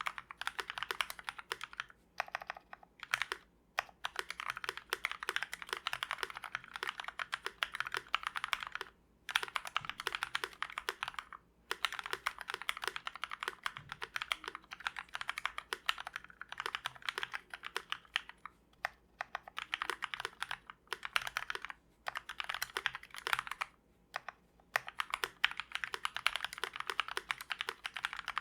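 Fast typing on a GMMK Fullsize mechanical keyboard with lubed Kailh Speed Silver linear switches and PBT keycaps, a dense run of keystroke clacks broken by a few brief pauses.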